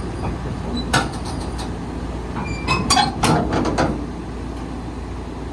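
Komatsu PC-205 hydraulic excavator running, with sharp metallic clanks and brief squeals as it is moved for unloading: one knock about a second in, then a cluster of clanks and squeaks around three seconds in.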